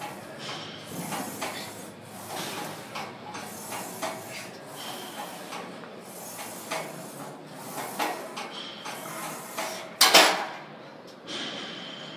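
Gym clatter from weights and machines: repeated short metallic knocks and rattles, some with a brief ringing squeal, and one loud metal clank about ten seconds in.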